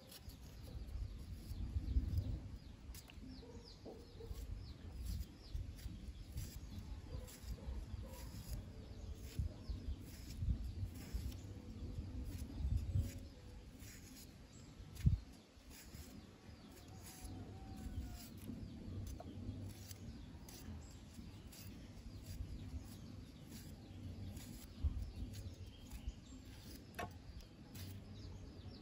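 Chickens clucking and small birds chirping, with soft knocks and scrapes of a knife slicing an aloe vera leaf into a small bowl. A single sharper knock comes about halfway through.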